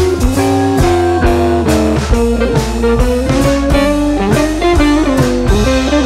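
Background music: a blues-style guitar tune over a drum kit with a steady beat.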